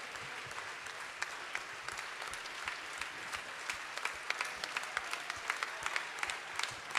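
Audience applauding. A few sharp, close claps stand out more often in the second half.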